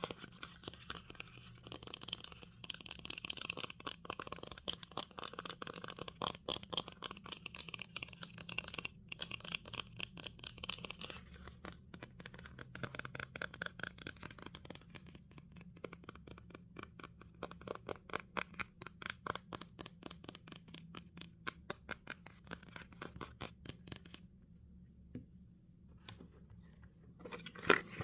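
ASMR tapping: quick runs of light taps on a small object, several taps a second, pausing briefly near the end.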